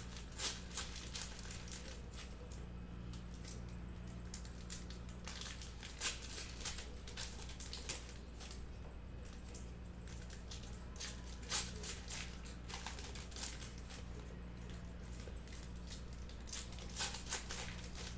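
Foil baseball card packs being torn open and their wrappers crinkled, in scattered short crackly bursts, over a steady low hum.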